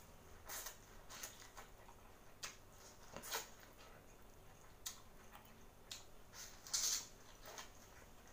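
Mouth sounds of eating boiled corn on the cob: irregular crisp clicks of kernels being bitten off the cob and chewed, the loudest a little before seven seconds in.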